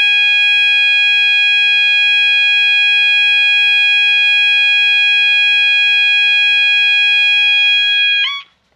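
System Sensor MASS multi-alert fire alarm sounder blaring a steady, continuous electronic tone with many overtones, really loud. It cuts off abruptly near the end with a brief chirp.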